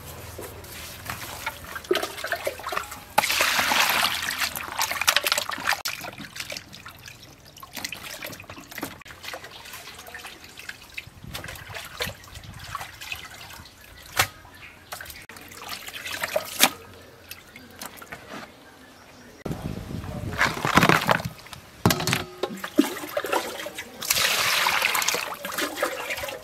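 Raw beef pieces being washed by hand in a plastic basin: wet meat squelching and water sloshing and trickling. There are louder stretches of rushing, splashing water a few seconds in and again near the end.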